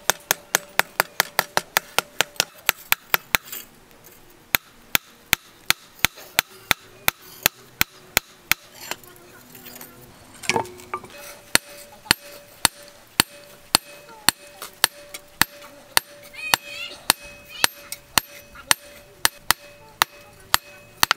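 Hand hammer beating a steel knife blade on a post anvil in a steady rhythm: about four blows a second at first, then about two a second, with a faint steady ring between blows.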